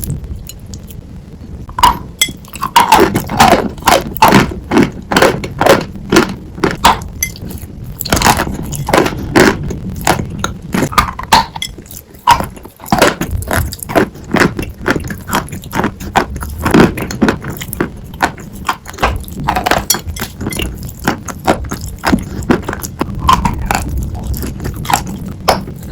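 Dry sawn chalk being crunched: loud, sharp, irregular crunches several times a second, starting about two seconds in, with a short pause about halfway through.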